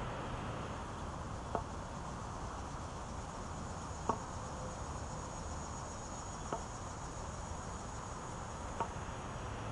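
A wooden walking staff tapping on a brick path, one sharp tap about every two and a half seconds. Under it, a steady high insect buzz grows stronger about three seconds in.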